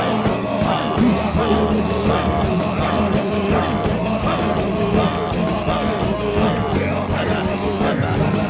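Worship music with sustained keyboard chords and a steady beat, under many voices praying and calling out aloud at once, none of the words clear.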